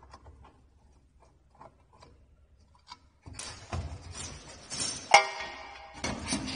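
Metal parts of a heat sealer's heating bar being handled and taken apart: a few faint clicks, then scraping and knocking. About five seconds in comes one sharp metallic clink that rings briefly.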